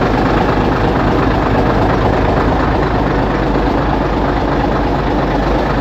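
2005 Hino Euro ten-wheeler dump truck's diesel engine idling steadily.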